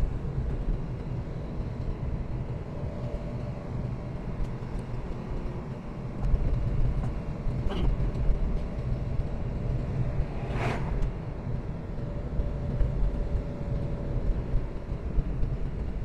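Car climbing a mountain road, heard from inside the cabin: a steady low rumble of engine and tyres. Two brief sharp sounds cut through it, a faint one about eight seconds in and a louder one just before eleven seconds.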